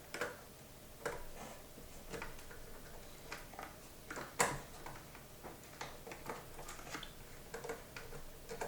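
Scattered light clicks and taps of wire ends and a small tool being worked into screw terminals, with one sharper click about four and a half seconds in.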